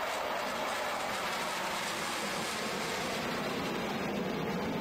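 Swiss Air Force F/A-18 Hornet twin-engine jet fighter flying a display pass: a steady, even rush of jet engine noise with no clear pitch, holding level throughout.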